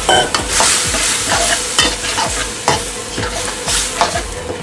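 Chicken pieces sizzling and frying in a wok over a gas burner, with a metal wok spatula stirring and scraping against the pan in repeated strokes about every half second.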